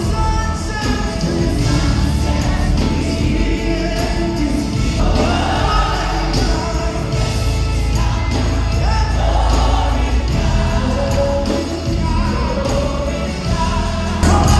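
Live gospel worship music: a choir and singers with a band, strong bass throughout.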